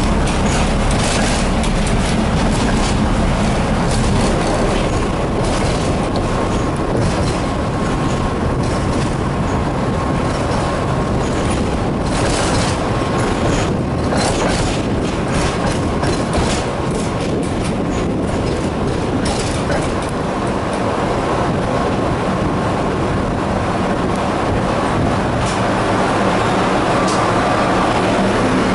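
Tatra tram running along the track, heard from on board: a steady rumble, with the wheels clattering in quick sharp clicks over the rails through much of it. Near the end it runs more smoothly with a steady low hum.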